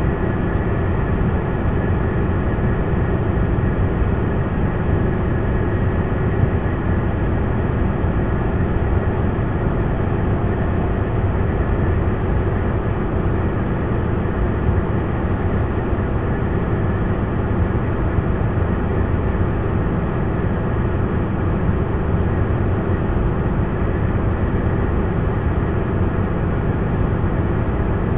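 Steady engine and road noise inside a truck's cab, heard through a dashboard camera's microphone while cruising at highway speed.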